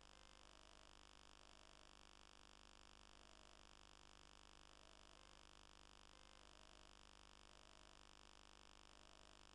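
Near silence: a faint, steady electronic hiss and hum with no other sound.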